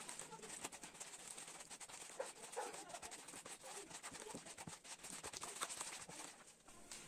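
Wooden stick stirring wet cement mix in a plastic basin: faint, quick scraping and slopping strokes.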